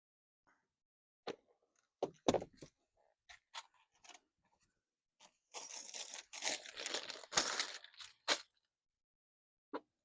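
Scattered knocks and clicks of things being handled, with a stretch of crackly rustling and crunching starting about five and a half seconds in and lasting about two and a half seconds.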